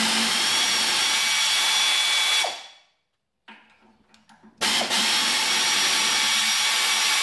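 Pneumatic air ratchet spinning a jacking bolt in the fan's shaft bushing: a steady air hiss with a high whine, run twice for about three seconds each with a short pause between. The bolts are binding in rusty threaded holes that need chasing.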